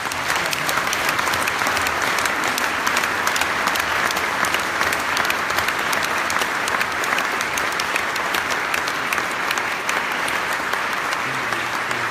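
Audience applauding: dense, steady clapping that starts as the speech ends and keeps going unbroken.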